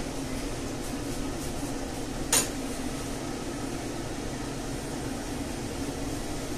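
Steady hum of a kitchen extractor fan, with a single sharp knock about two seconds in as the non-stick frying pan is handled over the ceramic hob.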